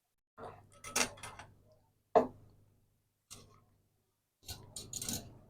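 Metal soldering iron stand with springs being handled: a few scattered light clicks and knocks, the sharpest about two seconds in and a quick cluster near the end.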